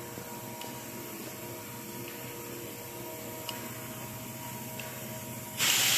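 Steady low hum with a few faint ticks. Near the end a loud hiss starts suddenly.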